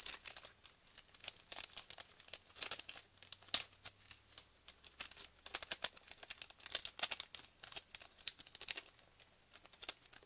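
Small clear plastic zip bag crinkling as it is handled, an irregular run of sharp crackles.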